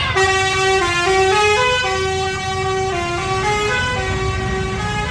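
Indonesian 'telolet' bus horn, a multi-tone musical horn, playing a tune of stepped notes over the bus's low engine rumble.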